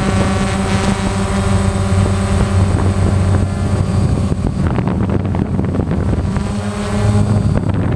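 DJI Phantom quadcopter's electric motors and propellers humming steadily, picked up by the GoPro carried on the drone, with wind buffeting the microphone. The hum fades under the wind noise past the middle and comes back near the end.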